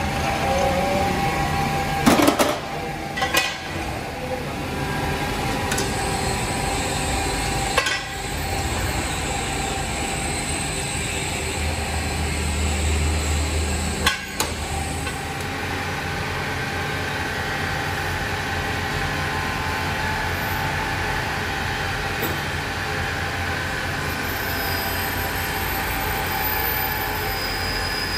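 Machine-shop lathes running: a steady mechanical hum with held whining tones. A few sharp metal clanks break in, the loudest about two seconds in, and a deeper motor hum swells for a few seconds around the middle.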